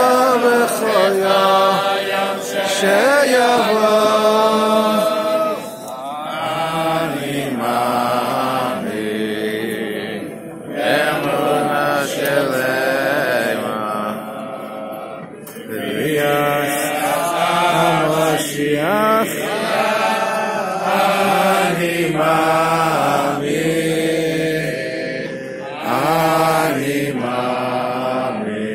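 A crowd of men singing a slow song together in unison, with long held notes and brief dips between phrases.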